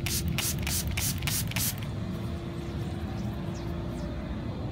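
Small hand spray bottle squirting a token clean in a quick series of sprays, several a second, stopping about two seconds in. Under it runs a steady hum and rumble of the workmen's machinery.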